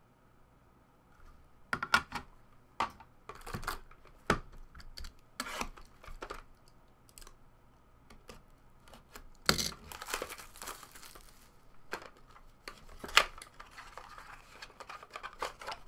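Hands handling and opening a sealed trading-card pack: the plastic wrapper crinkles and tears, with scattered sharp clicks and taps from hard plastic card cases. The longest tearing rustle comes about ten seconds in.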